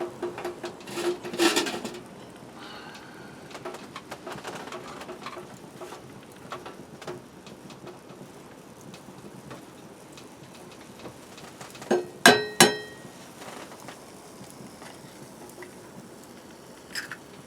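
Ham frying in a pan with a faint steady sizzle, with light clinks and handling of cookware in the first couple of seconds. About twelve seconds in, a sharp metallic clink-clink rings out, a utensil or egg striking the pan.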